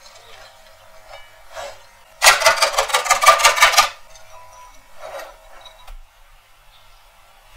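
Cheese being grated on a metal box grater: a fast run of scraping strokes lasting under two seconds, about two seconds in, with a fainter scrape shortly before and after.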